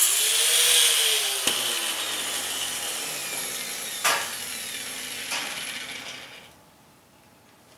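Angle grinder winding down after finishing a cut through expanded steel mesh, its whine falling in pitch and fading away over about six seconds. A few sharp metal clanks come as the cut mesh piece is set into the steel frame.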